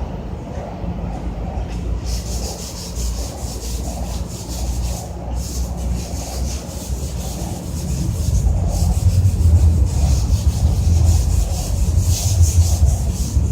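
Rapid back-and-forth scrubbing strokes on a water heater's surface, cleaning it down before painting; the strokes start about two seconds in. A low rumble grows louder in the second half.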